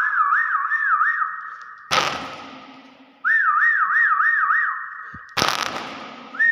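Hill myna whistling: runs of a warbling tone that wobbles quickly up and down four or five times, each cut off by a sudden harsh burst of noise, twice.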